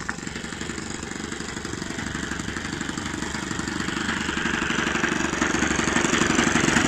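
Saito four-stroke model aircraft engine running on the ground with its propeller spinning: a rapid, steady pulsing that grows gradually louder.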